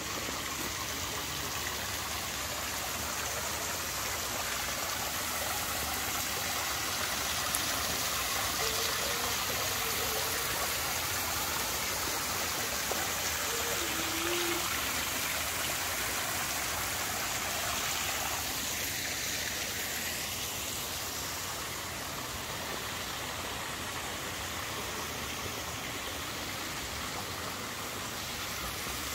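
Steady splashing of water from the Fontaine des Éléphants pouring into its stone basin. It grows a little louder toward the middle and fades somewhat in the last third.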